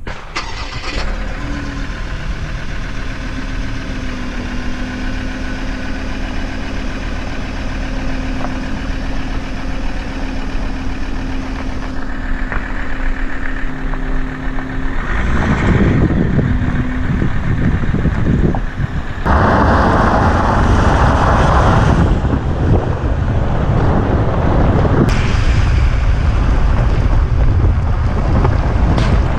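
A Ford Ranger 3.2 diesel pickup's engine running as the truck drives slowly over gravel, a steady hum at first. About halfway through, the tyres and the wind buffeting the side-mounted microphone get much louder and cover the engine.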